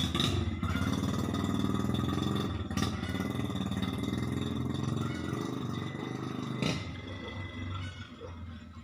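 A vehicle engine running steadily after its carburetor has been cleaned and refitted, with a few sharp clicks; it grows quieter near the end.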